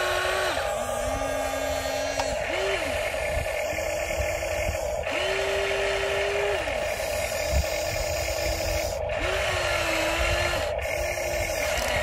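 Huina 1593 remote-control excavator's electric motors whining in a string of short runs of a second or so each, starting and stopping as the boom and arm reach out and the bucket scoops mud. A steady hum sits under them.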